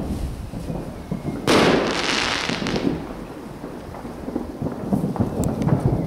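Fireworks booming in the distance with a rolling, thunder-like rumble. About a second and a half in comes a loud crackling hiss lasting about a second, and there are several sharp cracks near the end.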